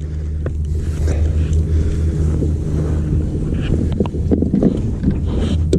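Boat motor running with a steady low hum, with wind noise on the microphone and a few light knocks.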